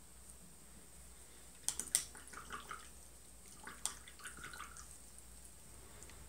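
Paintbrush being rinsed in a jar of water: a few sharp clinks of the brush against the jar about two seconds in and again just before four seconds, each followed by soft swishing and stirring of the water.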